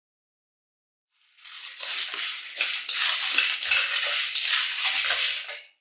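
A spatula stirring coriander seeds, cumin and dried red chillies in a steel kadai: the seeds rattle and the spatula scrapes the metal in repeated strokes. The sound starts about a second in and stops just before the end.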